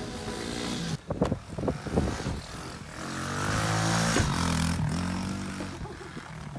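Small pit-bike engine revving, swelling to its loudest about four seconds in and then fading, after a few sharp knocks.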